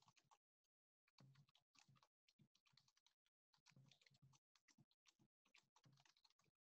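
Very faint typing on a computer keyboard: quick, irregular runs of keystrokes with short gaps between them.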